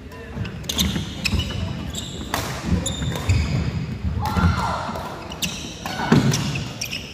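Badminton doubles rally: sharp racket strikes on the shuttlecock and quick footfalls on a wooden court, with short shoe squeaks about four and a half and six seconds in.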